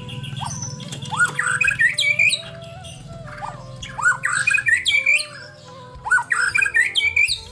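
White-rumped shama singing in three bursts of rapid, harsh, sweeping notes, about a second, four seconds and six seconds in.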